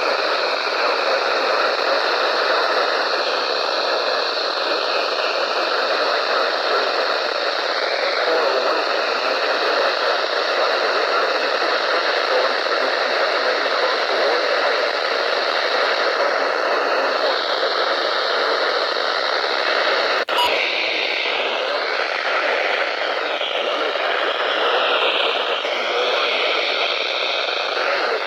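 Radio receiver hissing with static from a weak signal, a faint voice just audible beneath the noise. A single sharp click about 20 seconds in.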